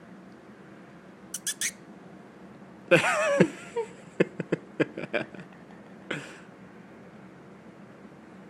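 French bulldog puppy giving a short, wavering vocal sound that falls in pitch, about three seconds in. A quick run of sharp mouth clicks and a short breathy puff follow.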